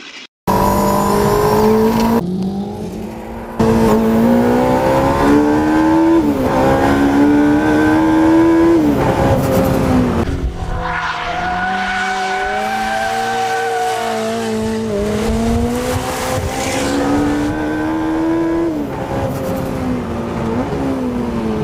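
Jaguar C-X75's 1.6-litre turbocharged and supercharged four-cylinder petrol engine revving hard on track, its pitch climbing and then dropping at each upshift, several times over. In the middle it holds a steadier, wavering note before pulling up through the gears again.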